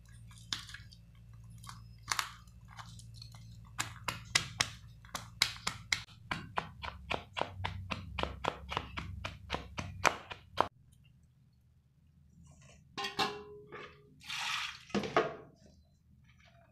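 Wooden pestle pounding and crushing bitter berries in a steel bowl: a few scattered strikes at first, then a fast even run of about four crunching strikes a second that stops suddenly about eleven seconds in. Near the end come a few brief wet squishes.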